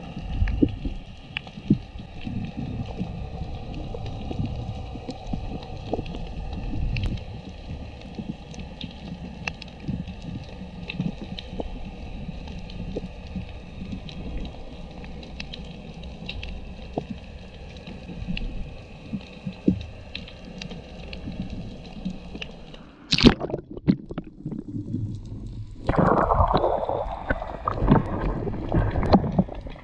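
Underwater sound picked up by a submerged camera: a low rumbling water noise with scattered short clicks and crackles. About 23 seconds in comes a sharp knock, and from about 26 seconds a louder rushing noise.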